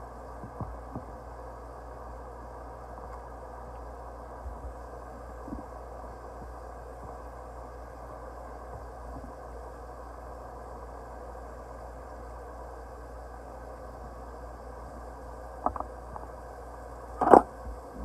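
Steady hiss of a bathroom faucet left running into the sink, with a few light knocks and a sharp clack near the end.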